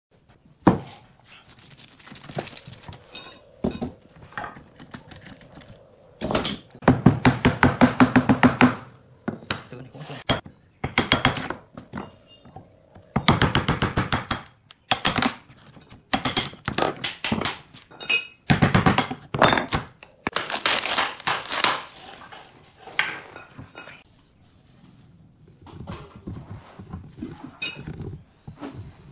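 A steel chisel on wood, knocking and prying a glued-up wooden block free of its clamping frame. It makes a string of sharp knocks with a few short rapid rattling runs of strokes.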